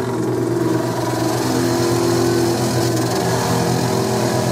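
Metallographic abrasive sectioning saw running just after start-up, spinning its aluminum oxide resin-bonded cutoff wheel while coolant sprays through two hoses onto the blade. A steady machine hum under a hiss of spray.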